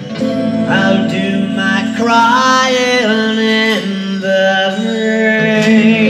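A man singing live into a microphone, holding long drawn-out notes with no clear words that slide from one pitch to the next, over recorded backing music.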